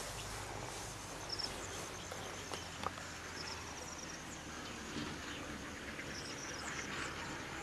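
Insects chirping in short, high trills that recur every second or so over a steady outdoor hiss.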